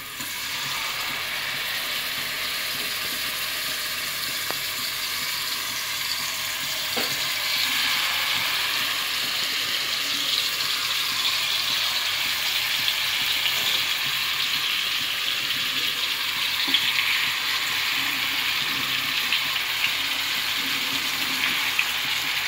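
Marinated chicken pieces sizzling in hot butter and oil in a nonstick frying pan as they are laid in one by one. The sizzle starts as the first piece goes in and grows louder a few seconds later as more pieces are added.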